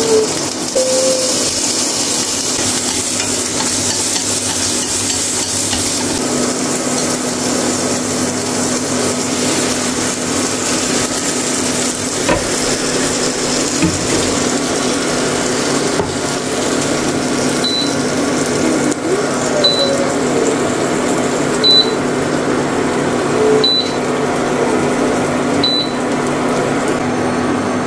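Bánh xèo frying in a nonstick pan: shrimp, pork and batter sizzling in hot oil with a steady hiss. In the second half a short high electronic beep sounds five times, about two seconds apart.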